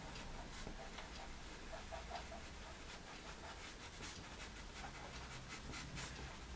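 Caran d'Ache pastel pencil scratching faintly on pastel paper in many short strokes, thickest between about four and six seconds in, as the dark colour is worked into the shaded sides of small trees.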